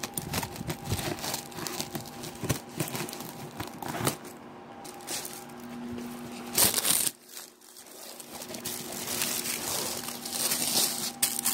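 Packing wrap crinkling and rustling as a boxed ceramic village building is unpacked from its foam cushions, with scattered clicks and handling knocks and a louder burst of crinkling near the end.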